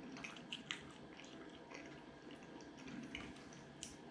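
Faint close-up chewing of a mouthful of steak pie: soft, wet mouth clicks and smacks scattered through, a few at a time.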